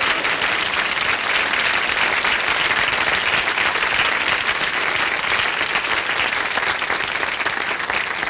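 Studio audience applauding steadily after a performance; the clapping fades out soon after.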